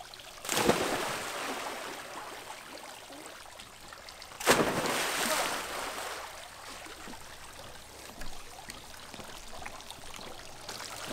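Two jumps into an above-ground swimming pool: a sudden splash about half a second in and another about four seconds later, each dying away over a second or two as the water churns.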